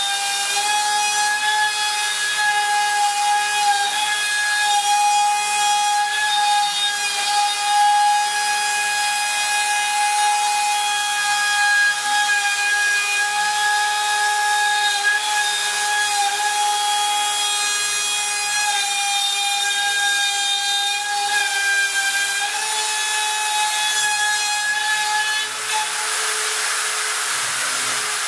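Heiz S-1000/T CNC router's spindle running at high speed with a steady whine, its end mill cutting into a wooden board with a rough rasping noise underneath. The whine shifts slightly in pitch a few times as the cutter moves along its path.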